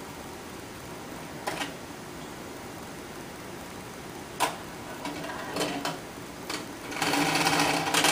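Steady hiss of an aquarium bubble curtain, broken by a few sharp clicks and, from about seven seconds in, a second and a half of loud, rapid mechanical rattling with a buzzing hum.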